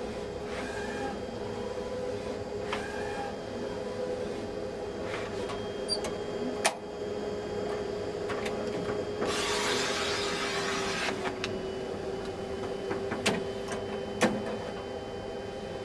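Large-format HP roll-feed plotter printing a drawing: a steady machine hum with a few sharp clicks, and a hiss lasting a couple of seconds near the middle.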